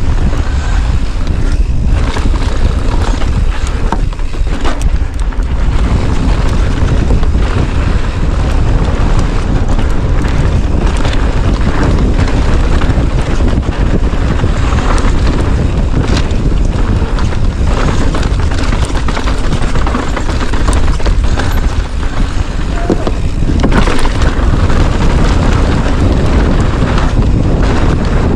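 Loud, steady wind buffeting on an action camera's microphone during a fast ride, a constant low rumble with no pauses.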